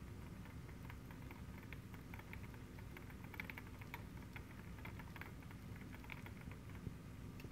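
Hamster running inside a plastic hamster ball on its wire stand: faint, quick, irregular ticking and pattering of its claws on the plastic, busiest around the middle, over a low background rumble.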